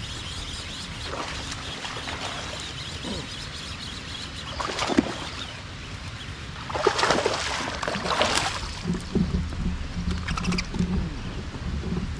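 A hooked largemouth-type bass thrashing and splashing at the water's surface beside a boat, with loud splashes about five seconds in and again a couple of seconds later, over the steady patter of rain on the water. A low pulsing hum comes in near the end.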